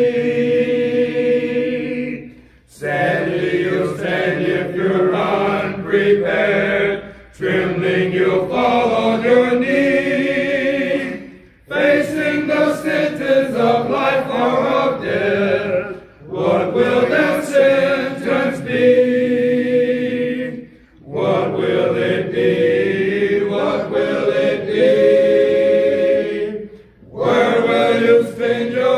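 Congregation singing an invitation hymn unaccompanied, many voices together in long phrases with short breaks between them every four or five seconds.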